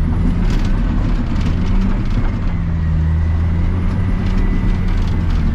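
Cat D7 Next Gen bulldozer's diesel engine running steadily while the dozer pushes snow, heard from inside the cab. A few short knocks and clanks come through over the engine.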